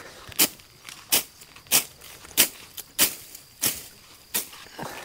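Hand sickle swung through grass, cutting it: a steady rhythm of short swishes, about eight strokes at roughly one and a half a second.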